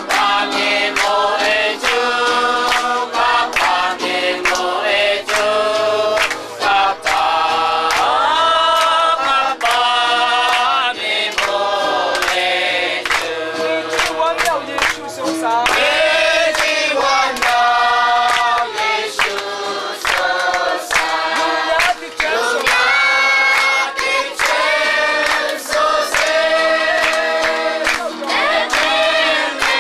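A congregation of men and women singing a hymn together, with hand-clapping in time to the song.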